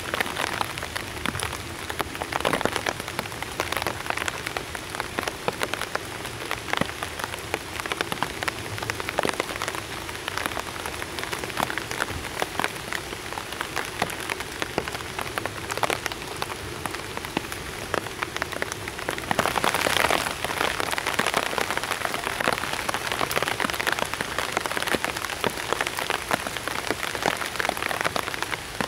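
Steady rain falling on a survival blanket shelter, countless fine drops tapping on the foil, growing louder for a couple of seconds about two-thirds of the way in.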